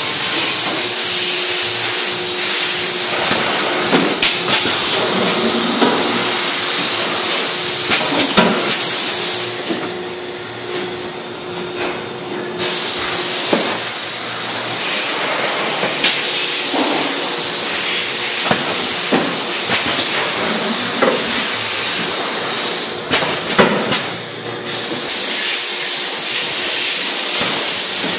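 Industrial plastics-processing machinery running: a steady loud hiss with a faint hum and scattered clacks and knocks. The hiss cuts back briefly twice.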